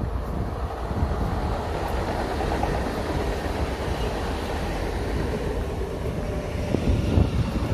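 Pågatåg electric multiple unit (Alstom Coradia Nordic X61) pulling into the station, a steady rumble with a faint whine from its running gear as it draws alongside the platform. Wind thumps on the microphone after about seven seconds.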